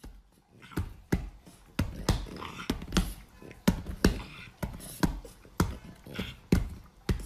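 A French bulldog on a leather couch, with irregular sharp taps and thumps about two a second and some breathy noise between them.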